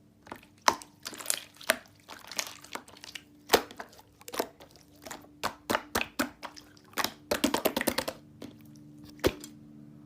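Handling noise: irregular sharp clicks and crackles, some in quick runs, over a faint steady hum.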